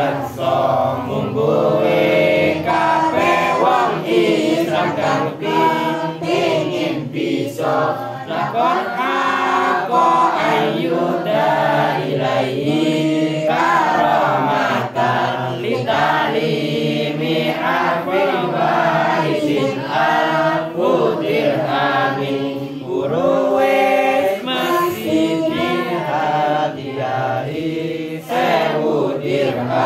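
A group of young students chanting verses together in unison from their books, with one voice through a microphone; the chant runs in repeated melodic phrases with short pauses for breath.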